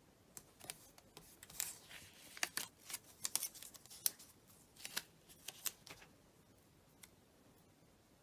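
Washi tape being pulled off its roll and pressed along the edge of a paper planner page: soft, irregular crackles and short rasps that stop about six seconds in.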